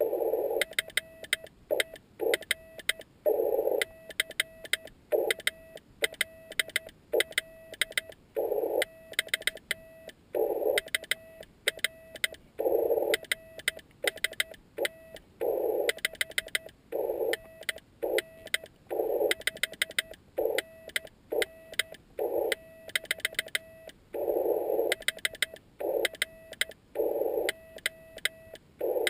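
Slow Morse code (CW) from a Yaesu FT-817ND transceiver: one steady tone keyed on and off in dots and dashes, with bursts of band hiss around the tone. Sharp clicks run throughout.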